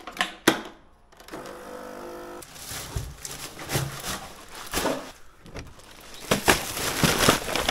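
A small electric appliance hums steadily for about a second, then a run of handling noises: rustles, knocks and clatters, the loudest near the end as a wheelie bin lid is opened and garden waste dropped in.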